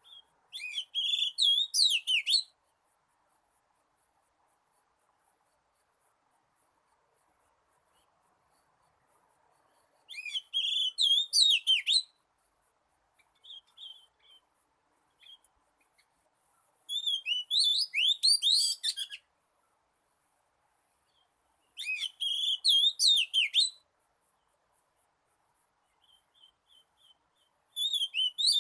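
Oriental magpie-robin singing: five bursts of varied, gliding whistled song, each about two seconds long and spaced several seconds apart, with a few soft short notes in between. It is a decoy bird's wild-type song, used to lure wild magpie-robins to a trap.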